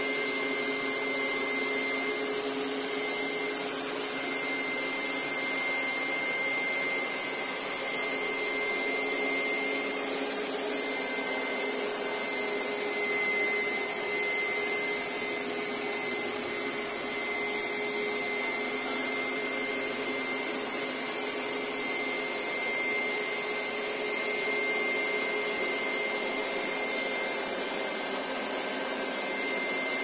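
Hoover SteamVac upright carpet cleaner running steadily as it is pushed over a rug: an even motor and suction noise with a steady high whine.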